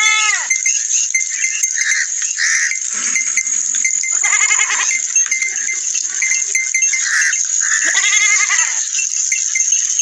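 Goats bleating: three short, wavering bleats about four seconds apart, over a steady high-pitched background drone.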